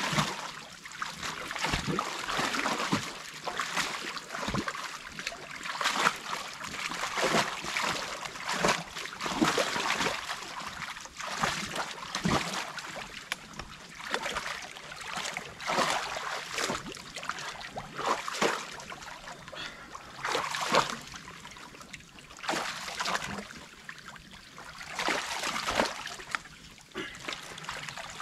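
Creek water splashing and trickling as it pours through a breach in a beaver dam, in uneven splashes about once a second.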